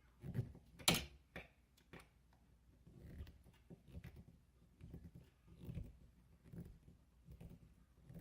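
Screwdriver driving screws to fix a Nest thermostat's base plate to the wall: a sharp click about a second in, then soft, low, even strokes about once every 0.8 s.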